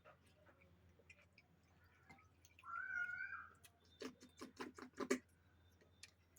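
A short, squeaky, wavering pitched sound about two and a half seconds in. Then, around four to five seconds in, a quick run of about seven wet smacking clicks from chewing.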